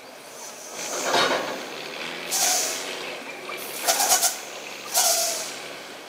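Air brakes of a heavily loaded log truck hissing in three short bursts, each with a brief squeal.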